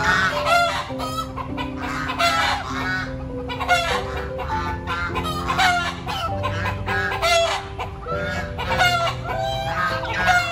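Domestic geese and chickens calling, a steady run of short, repeated calls throughout.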